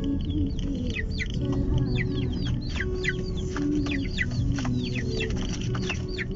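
Chicken calling inside the moving car: a rapid run of short, high chirps, each falling quickly in pitch, several a second, over the low rumble of the car on the road.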